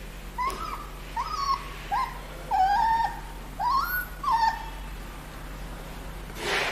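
Puppy whimpering and yelping, a run of about seven short high cries over some four seconds, some rising in pitch and one held longer, as a mango worm (tumbu fly larva) is squeezed from its skin. A short breathy puff follows near the end.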